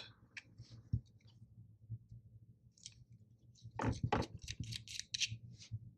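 Small parts of a Bass Pro Pro Qualifier 2 baitcasting reel clicking and scraping as they are worked loose by hand during disassembly. Scattered faint clicks give way to a quicker run of clicks and rustles in the second half.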